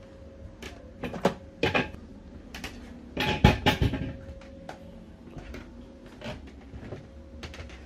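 A series of sharp clicks and knocks from the air rifle rig on the bench. The loudest is a cluster about three and a half seconds in, with lighter clicks before it and a few faint ones after, over a faint steady hum.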